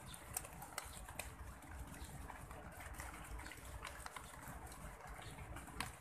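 Zebra dove pecking at rice grains on concrete: a scattering of short, sharp ticks of its beak against the ground, one louder near the end, over a faint low background rumble.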